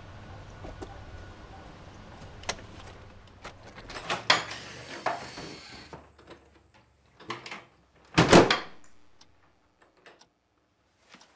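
Door handling: a few light knocks and clicks, then one loud knock about eight seconds in as a wooden front door is pushed shut. A steady outdoor background cuts off abruptly partway through.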